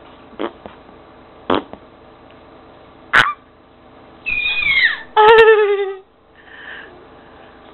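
A pet's vocal sounds: a few short sharp snorts, then a falling squeal and a loud, wavering high-pitched call about five seconds in.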